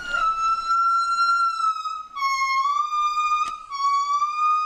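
Gibbon calling: long, steady, high hooting notes held for seconds at a time, with short breaks about two seconds in and near the end. A single sharp click about three and a half seconds in.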